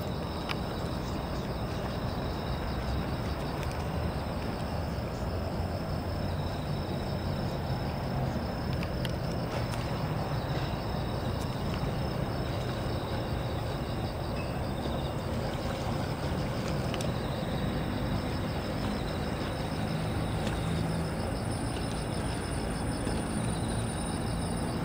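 Steady low engine rumble with insects trilling continuously at a high pitch.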